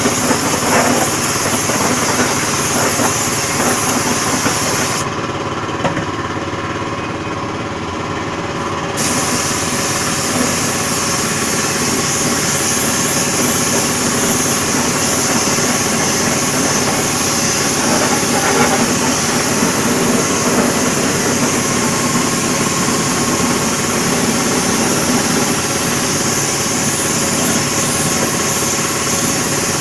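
Compressed-air spray gun hissing steadily as it sprays the wheel during spray chroming, over the steady running of an air compressor. The spray hiss cuts out for about four seconds about five seconds in, then resumes.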